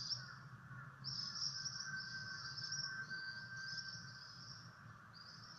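Ashy minivet calling: a string of high, rolling trills, one after another, over a faint steady buzz.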